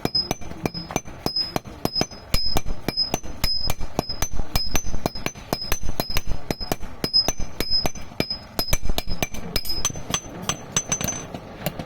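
Rapid hand-hammer blows on iron at an anvil, about four to five a second, each stroke ringing briefly with a high metallic ping that alternates between two pitches. This is the steady hammering of forging iron nails, and it slows and breaks off near the end.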